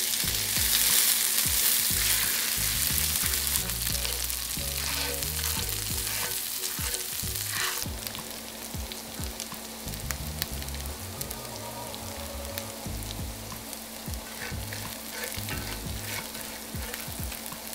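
Diced onions sizzling in hot oil in a cast iron skillet, stirred with metal tongs that click against the pan. The sizzle is loudest at first and drops off about halfway through.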